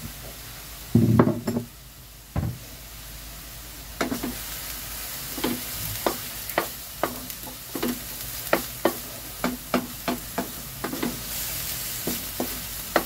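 Chopped banana blossom being stir-fried in a metal wok, the utensil scraping and clinking against the pan about twice a second over a light sizzle. A few louder knocks come about a second in and again near two and a half seconds.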